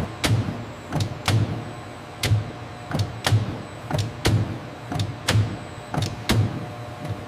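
Roti-making machinery running in a steady cycle: a sharp metallic clack about once a second, often in quick pairs, each over a short low hum.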